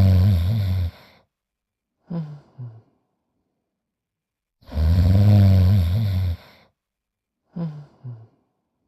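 Cartoon character snoring: a long, deep snore followed by two short puffing exhales. The cycle comes twice, in a steady rhythm about five seconds apart.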